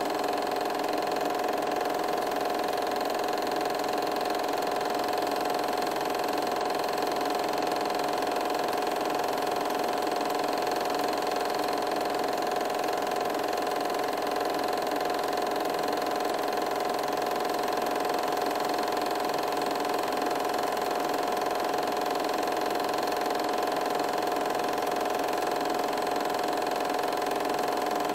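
8mm film projector running: a steady mechanical whir with a constant hum, unchanging throughout.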